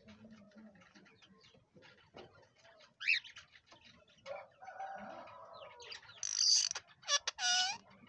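Rose-ringed parakeet calling: a single sharp call about three seconds in, then a longer held call, then loud, shrill screeches near the end.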